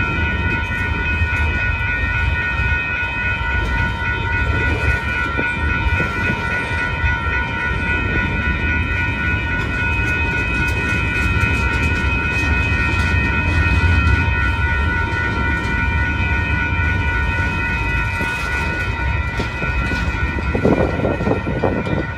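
Freight cars rolling past at close range: a steady low rumble of wheels on rail with a steady high ringing of several tones held over it.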